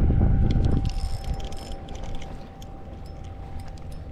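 Wind buffeting the microphone for about the first second, then a spinning reel being cranked, with light irregular ticking from the reel.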